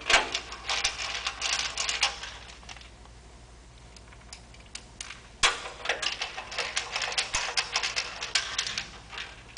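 Screwdriver driving the fan assembly's mounting screws back into the drive cabinet: two spells of rapid clicking, the second starting with a sharp knock about five and a half seconds in.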